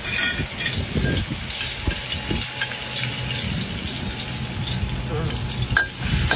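Metal spatula scraping and tapping around an aluminium wok as a pounded pepper and celery-root paste starts to fry in a little oil, over a steady rushing noise. There is one sharp clink near the end.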